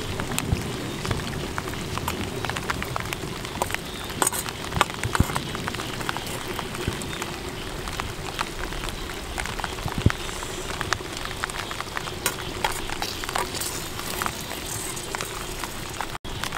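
Long metal tongs clicking and scraping against a clay cooking pot as chicken pieces are lifted out, over a steady crackling patter.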